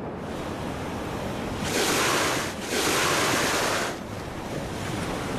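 Sea surf washing ashore, with two louder rushes of water, one about two seconds in and another just after.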